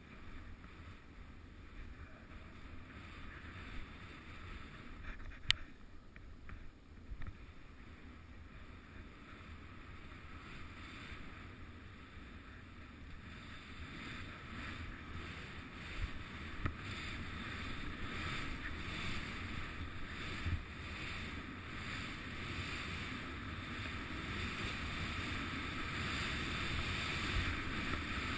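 Skis running through powder snow, with wind buffeting a small action camera's microphone as a steady rushing noise that grows louder toward the end. One sharp click about five and a half seconds in.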